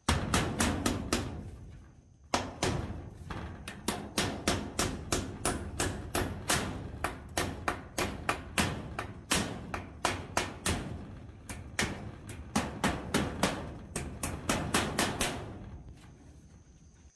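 Hammer driving nails in quick, steady blows, about three a second, with a short pause about two seconds in.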